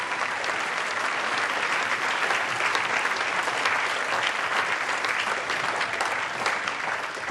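Audience applauding: many hands clapping in a dense, steady patter, easing off slightly near the end.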